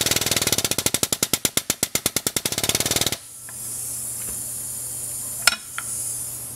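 Air-powered hydraulic pump running in a rapid pulsing chatter, about ten strokes a second, driving an 8-ton ram that pulls a knockout punch through 3/16-inch aluminium. It stops suddenly about three seconds in, and a single sharp click comes near the end.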